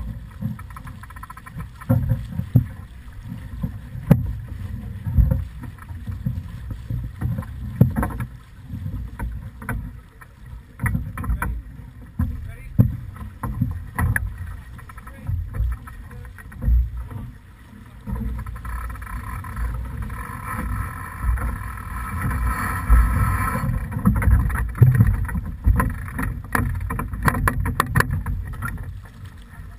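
Sailing yacht under way: wind gusting on the microphone and water rushing past the hull, with scattered knocks and clicks.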